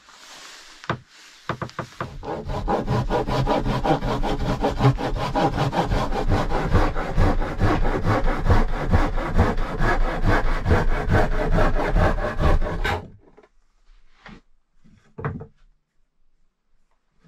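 Hand saw cutting through wood with quick, even strokes, which stop suddenly after about eleven seconds; then a couple of light wooden knocks.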